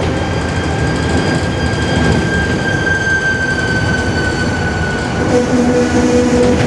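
Rear differential of a Mercedes-Benz OF-1721 city bus howling very loud: a high whine over road and engine rumble that falls slightly in pitch. A second, lower whine joins about five seconds in.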